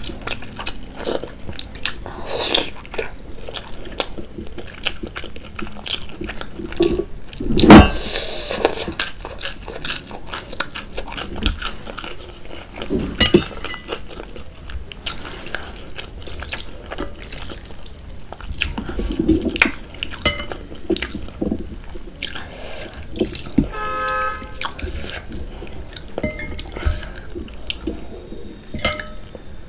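Close-miked wet eating sounds of soupy noodles and boiled egg: chewing, mouth smacks and slurps, with small fork clicks against the bowl. One loud burst about eight seconds in.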